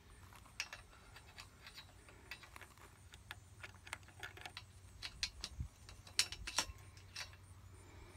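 Metal solar racking hardware being handled and fitted: irregular light clicks and clinks, with a few sharper clacks about six seconds in.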